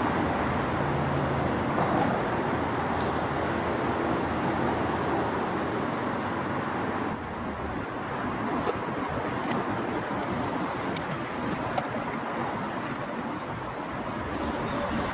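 Steady rushing background noise that drops slightly about seven seconds in, with a few faint clicks.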